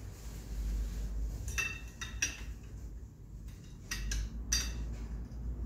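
Steel plates and friction discs of a Suzuki GSX-R1000 clutch pack clinking against each other as they are stacked back into the clutch basket by hand: about four light metallic clinks, each with a short ring.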